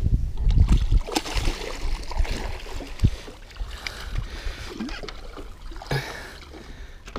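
Hooked smallmouth bass thrashing and splashing at the water's surface beside the boat as it is grabbed by hand, in irregular bursts. A low rumble at the start and a single knock about three seconds in.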